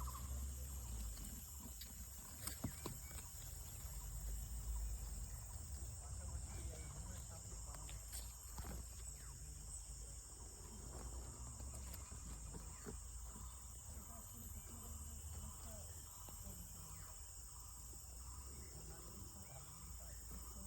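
Forest insects, such as grasshoppers or crickets, keeping up a steady high-pitched drone, over a low rumble, with a sharp click about two and a half seconds in.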